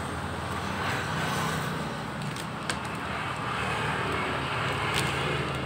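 Steady low hum of motor traffic running in the background, with a few short, light clicks and rustles as a plastic parts bag is handled.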